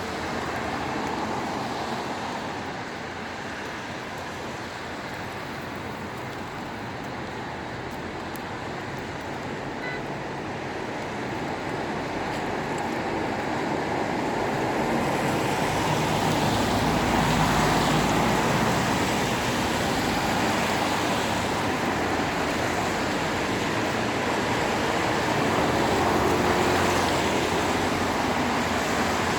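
Road traffic noise, a steady wash of passing vehicles, swelling louder with a deeper rumble about halfway through as a vehicle goes by close.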